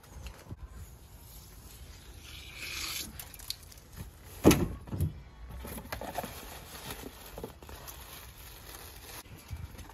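Cardboard box and plastic wrapping being handled and opened, with rustling about two and a half seconds in and a sharp knock about four and a half seconds in, followed by a smaller one.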